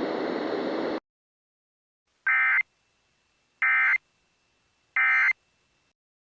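A steady hiss stops about a second in. Then come three short, identical bursts of Emergency Alert System digital data tones, each under half a second and about one and a half seconds apart: the end-of-message (EOM) code that closes an EAS alert.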